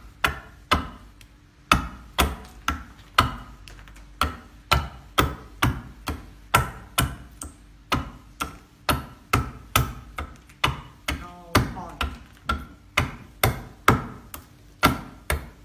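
Hafted stone adze (toki) chopping into a wooden board with steady blows, about two a second, cutting across the grain.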